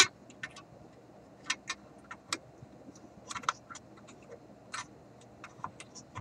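Irregular light clicks and taps of parts on a vintage radio chassis being handled, with one sharp, louder click at the very start.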